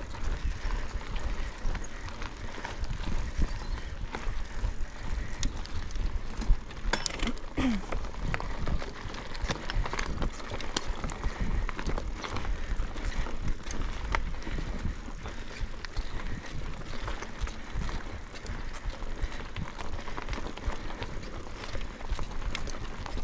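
Mountain bike ridden along a cross-country trail: tyres rolling over rough ground and the bike rattling and knocking over bumps, with steady wind rumble on an onboard microphone.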